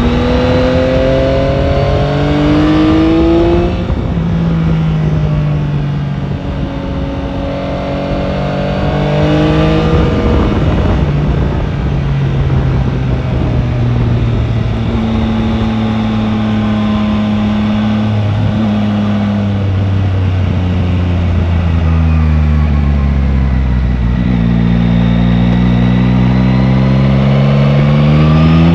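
Yamaha Tracer 9 GT's 890 cc inline-three engine under way, its pitch climbing under acceleration and dropping at a gear change a few seconds in, with wind rushing past. It settles to a steadier pull through the middle, eases off and falls in pitch a few seconds before the end, then revs up again to accelerate.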